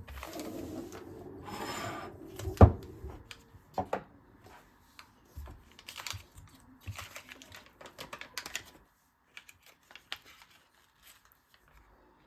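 Objects being handled: a rustle, then one sharp knock and a string of light clicks and knocks that stop about nine seconds in.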